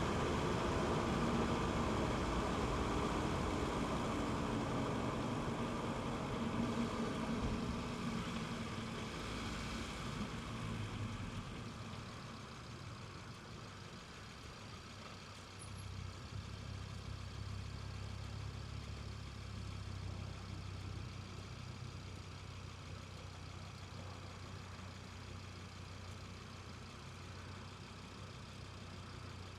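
Audi TT RS's turbocharged five-cylinder engine running, its sound easing off and growing quieter over the first dozen seconds. About halfway through it settles into a steady low drone.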